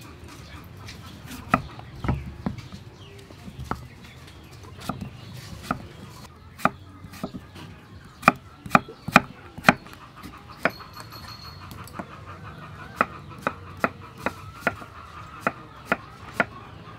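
Cleaver chopping a peeled green vegetable on a round wooden chopping board: a string of sharp knocks at an uneven pace, with the loudest cluster of strokes about halfway through.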